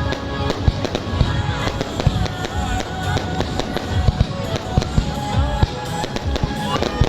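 Fireworks going off in rapid, irregular bangs and crackles, several a second, with music playing underneath.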